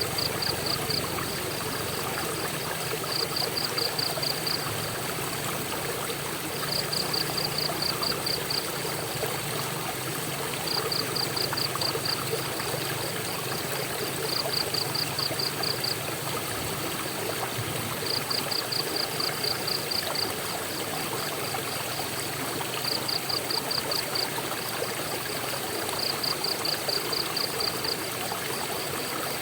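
Waterfall water rushing steadily. A high, rapid pulsing trill cuts through it in short bursts of about a second or two, repeating every three to four seconds.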